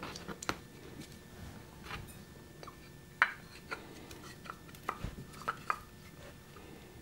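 Light taps and clicks of plaster mold halves being fitted together and handled on a work table, with a duller thump about five seconds in.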